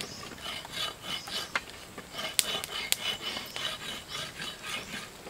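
A utensil scraping and rubbing in a cooking pot as noodles are stirred: a run of short rasps, with a few sharp clicks about halfway through.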